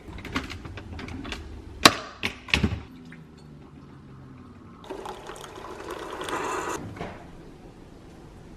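Coffee maker: a few sharp clicks and knocks, then coffee running into a cup for about two seconds.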